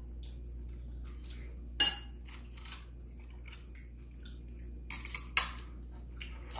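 Spoons and chopsticks clinking and scraping against bowls while eating, a series of short, sharp clinks, loudest about two seconds in and again about five seconds in.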